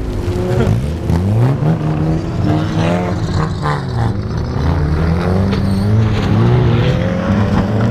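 Engines of several old wreck-race cars revving hard as they race on a dirt track. Their pitches overlap and keep rising and falling as the cars accelerate and ease off through the turns.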